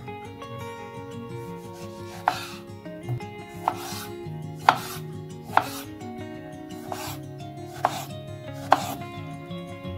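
Kitchen knife slicing tomatoes on a wooden cutting board. Each cut ends in a sharp knock of the blade on the board, about seven cuts roughly a second apart, starting about two seconds in.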